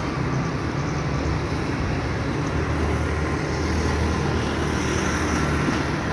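A motor vehicle's engine running steadily amid street traffic noise, a continuous low hum with no sudden changes.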